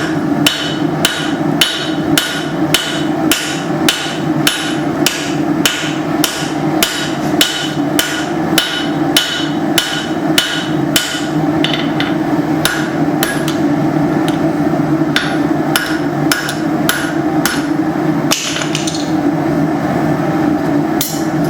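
Hand hammer striking hot leaf-spring steel on an anvil to thin and draw it out, about two ringing blows a second. About halfway through the blows grow slower and irregular, break off, and a few more come near the end. A steady low drone runs underneath.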